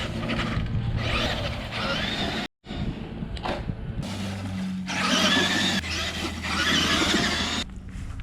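Traxxas E-Maxx electric RC monster truck running at full throttle: motor and drivetrain whine with tyre noise, swelling and falling in repeated bursts. The sound cuts out completely for a moment about two and a half seconds in.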